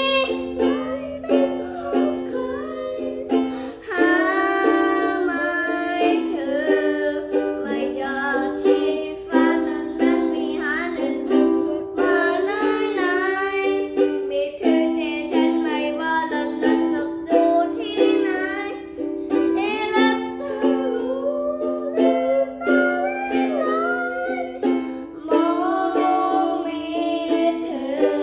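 A man singing a Thai pop song in a cover version over a strummed plucked-string accompaniment, the chords steady beneath the vocal line.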